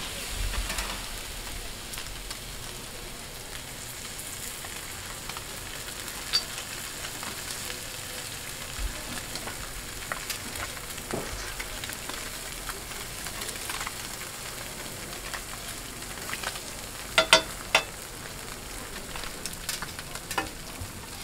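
Battered fish fillets sizzling steadily in oil on a flat-top griddle. Near the end, metal spatulas clack sharply against the griddle a few times.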